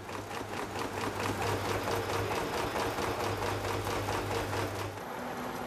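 Automatic needle-making press die-pressing and eye-punching steel needle blanks: a fast, even mechanical clatter of many strokes a second over a steady hum, the hum dropping away near the end.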